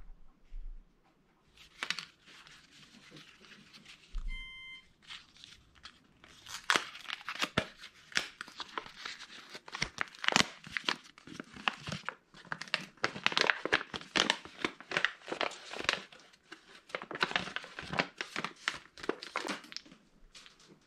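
Brown kraft-paper envelope being torn open and crumpled by hand: scattered crackles at first, then a dense run of paper rustling and tearing from about six seconds in, stopping just before the end.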